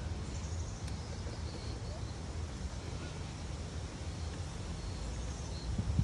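Outdoor ambience: a steady low rumble of wind on the microphone, with a few faint, high bird chirps about half a second in and again near the end.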